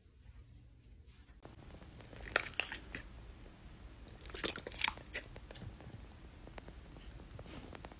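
Chewing of crunchy food close to the microphone: two bursts of crisp crunching, the louder one near the start of the clip, with smaller crunches after.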